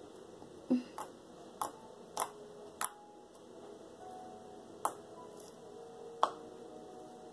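Slime being poked and pressed, giving off about seven sharp clicking pops at irregular intervals as trapped air bursts.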